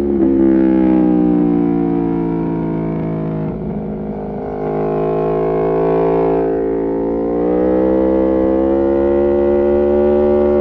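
Aprilia Tuono V4 Factory's V4 engine through an Arrow GP2 exhaust with the dB killer removed, at track speed. The revs fall steadily for the first three seconds or so, drop off briefly, then climb slowly in two pulls with a short break between them.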